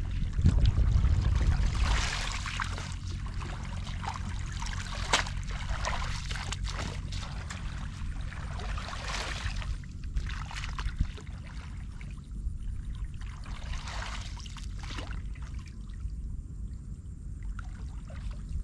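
Shallow muddy water sloshing and trickling in irregular splashes as it is waded and worked through by hand, with a low rumble in the first couple of seconds and a single sharp click about five seconds in.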